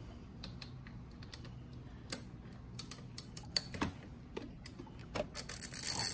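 Light metal clicks and taps from a 14mm socket on an extension as it is spun by hand to unscrew the oil gallery plug on a Suzuki Burgman 400 engine. The clicks come at irregular spacing, grow busier about two seconds in and bunch into a dense run near the end.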